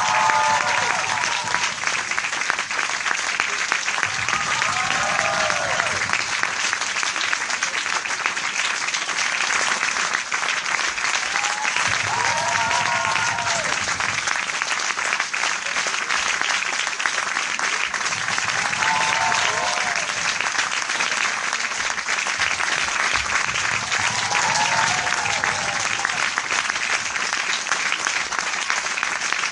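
Large crowd applauding steadily, with dense continuous clapping. Five times, a voice in the crowd calls out with a short rising-then-falling cry.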